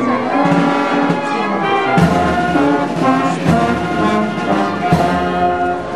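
Brass band playing slow sustained chords, with a drum struck about every one and a half seconds.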